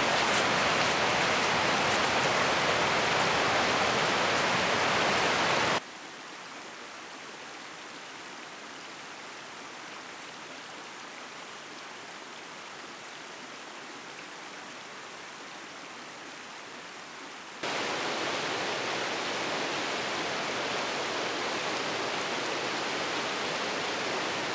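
Rushing river water, a steady noise without tones. It drops sharply in level about six seconds in and comes back up about two-thirds of the way through.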